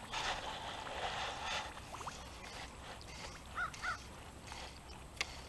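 A bird calls twice in quick succession, two short arched notes about three and a half seconds in. A soft rustling noise comes before it in the first second or so, and a single sharp click comes near the end.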